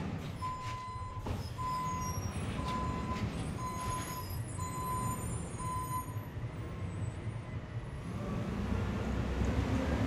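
Garbage truck's natural-gas engine running at the curb while its warning beeper sounds six steady beeps, about one a second, then stops. A sharp knock just over a second in; the engine grows louder near the end.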